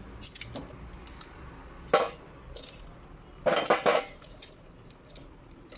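Lumps of hot charcoal being set down on a textured metal baking sheet, clinking and scraping against the metal: a sharp clink about two seconds in, then a short cluster of clatters about a second and a half later. The coals are heaped on the sheet over the lasagna pan to brown its top.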